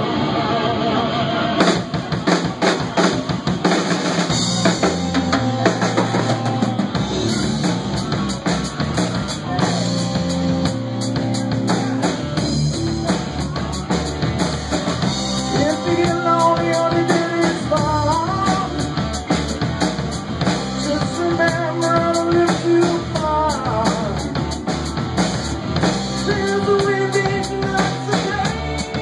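Live rock band playing: drum kit with bass drum and snare hits driving a steady beat under guitar and bass, with wavering lead lines or vocals coming in from about sixteen seconds in.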